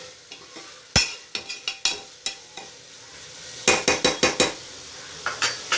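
A spoon stirring sautéing vegetables in a pressure cooker, scraping and knocking against the pot in irregular strokes, with a cluster of quick strokes about four seconds in, over a faint sizzle of the vegetables frying in oil.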